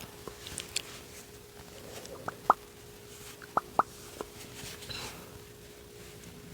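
Close-miked eating sounds: a handful of short, sharp, wet mouth clicks and lip smacks between about two and four seconds in. Under them runs a faint steady hum, which the eater blames on a faulty mic wire.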